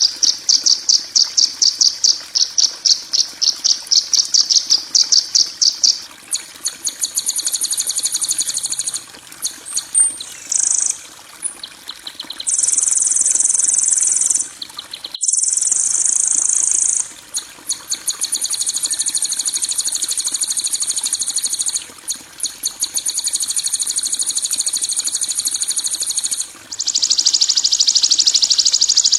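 High-pitched, harsh buzzy calls from a songbird-tutoring (masteran) recording: first a run of evenly repeated sharp chips, then long rasping rattles and trills in blocks of a few seconds. There is a brief break about halfway, and a denser, louder rattle near the end.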